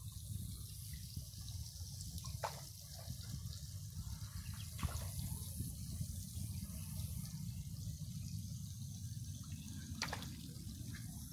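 Water splashing and dripping in a small muddy duck pond, over a steady low rumble, with three sharp drip-like clicks.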